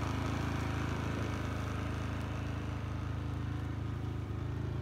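An engine idling steadily, a constant low drone that holds one pitch throughout.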